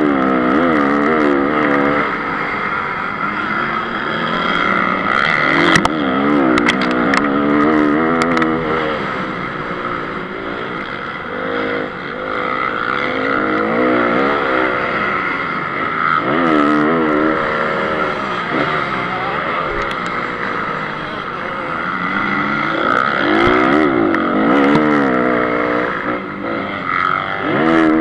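Honda CRF 250 four-stroke single-cylinder motocross engine under race throttle, its pitch rising and falling again and again as the rider accelerates and shuts off, with a few short clicks in between.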